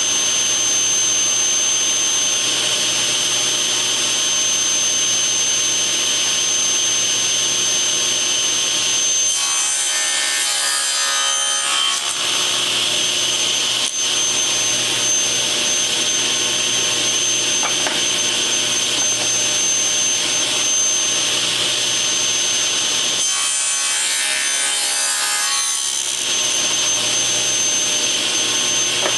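Table saw running steadily with a high whine, its blade cranked all the way up. It makes 45-degree miter cuts through the ends of wooden frame blanks, and the sound changes twice, about ten seconds in and again past twenty seconds, as the blade goes through the wood.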